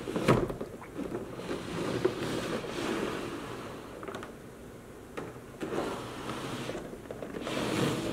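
A clear plastic blister tray being handled and turned over, crinkling and crackling in uneven swells, with a few sharp clicks and knocks as the plastic flexes and taps the table.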